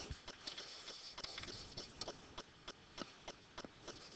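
Faint, irregular ticks and light taps of a stylus on a tablet surface while writing by hand, several a second.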